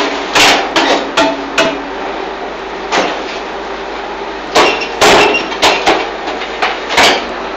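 Fly ash brick making machine running: a steady hum under sharp clanks and knocks that come in clusters, four in quick succession near the start, a lone one about three seconds in, and a louder run of them from about four and a half to seven seconds.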